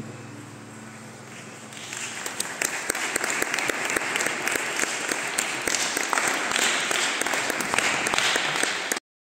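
Music fading out, then an audience breaking into applause about two seconds in, many hands clapping together.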